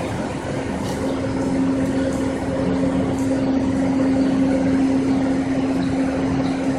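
A machine's engine running steadily up close, a constant low hum that swells slightly in the middle.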